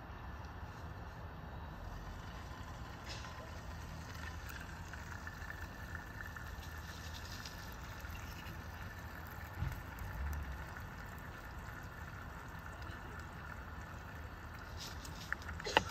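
An egg is cracked on the rim of a skillet on a mini propane camp stove, giving a knock about ten seconds in, over a steady low rush. A sharp click comes just before the end.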